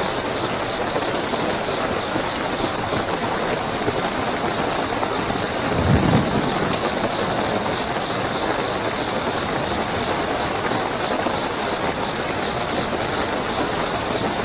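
Steady heavy rainfall with a continuous high, thin chirring of night crickets behind it. About six seconds in, a brief low rumble, like distant thunder, rises over the rain.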